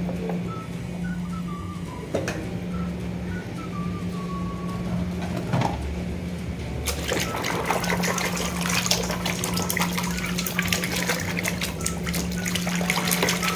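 Water splashing and sloshing in a plastic basin as hands churn muddy toy vehicles in it, starting about halfway through and going on busily. Before that there are a few knocks of the plastic toys being handled.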